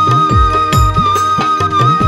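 Bamboo flute (bansuri) holding one long high note, wavering slightly near the end, over a steady folk drum rhythm whose deep bass strokes bend downward in pitch.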